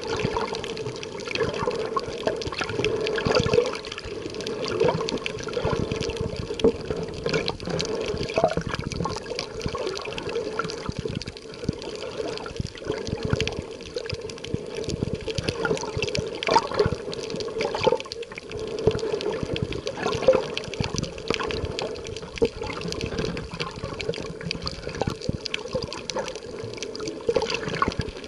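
Water heard by a camera held underwater: a steady, muffled wash of moving water with a constant hum, scattered with irregular small clicks and crackles.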